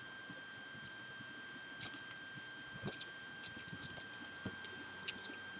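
Scattered light clicks and rustles of paintbrushes being handled and sorted while a fine-line brush is searched for, over a faint steady high whine.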